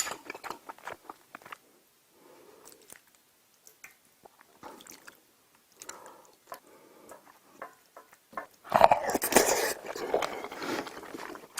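Close-miked eating: soft chewing with small wet mouth clicks, then a louder burst of biting and chewing about nine seconds in.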